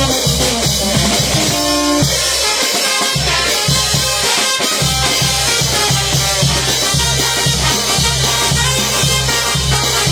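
A Latin band playing an instrumental passage with drum kit and percussion over a steady beat. The bass thins out for a few seconds about two seconds in, then the full band comes back.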